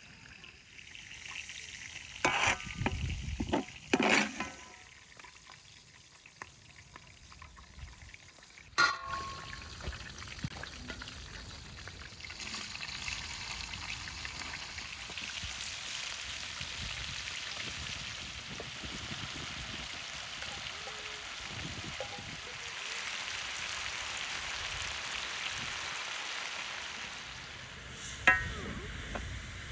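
Sliced onions frying in hot fat in a cauldron over a wood fire: a steady sizzling hiss that sets in about twelve seconds in as the onions go into the pot. A few sharp knocks come in the first ten seconds and one more near the end.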